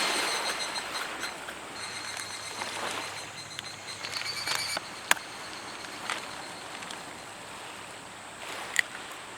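Small waves washing steadily on the shore, with a couple of sharp clicks from handling bowls or ingredients.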